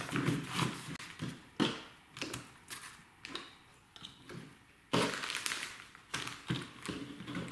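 Handling noise as paper leaflets, a pistol magazine and a cable lock in a plastic bag are laid into a hard plastic pistol case: paper rustling and sliding, light knocks on the case, and plastic crinkling. The sounds come in irregular bursts, with a quieter lull in the middle.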